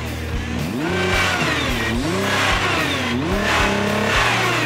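Nissan GT-R R35's 3.8-litre twin-turbo V6 revved at a standstill through its quad exhaust. It blips about three times, each rise in pitch falling back toward idle.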